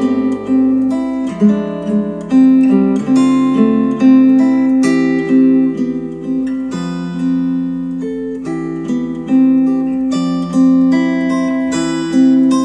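Instrumental acoustic guitar music with plucked notes over held lower notes, played back through a pair of KEF LS50 Meta bookshelf speakers driven by an Arcam SA10 integrated amplifier.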